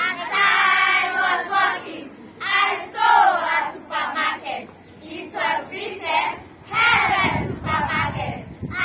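A group of schoolchildren singing an action song together in short phrases, with brief pauses between lines.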